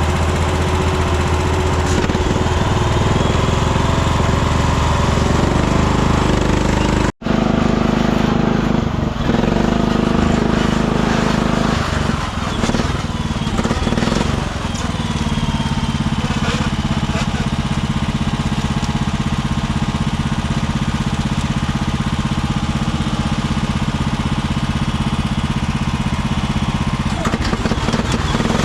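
Engine running steadily, cut off briefly about seven seconds in, then running on with a slightly changed note.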